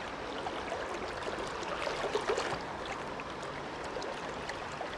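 Steady flow of a stream's running water, with small splashy flecks about two seconds in.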